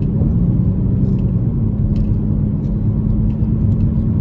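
Car cabin noise while driving: a steady low rumble of engine and road, with a constant low hum.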